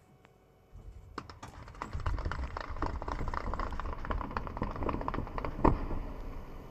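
Open-pit mine blast heard from a distance: many charges going off in quick succession as a dense run of cracks and thuds over a low rumble, starting about a second in, with one louder crack near the end before the rumble fades.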